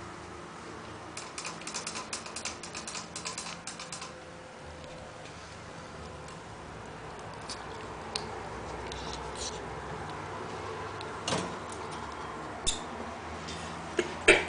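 Ferrets playing around a wire cage: a run of rapid light clicks and ticks starting about a second in and lasting a few seconds, then scattered taps and a sharper knock later on.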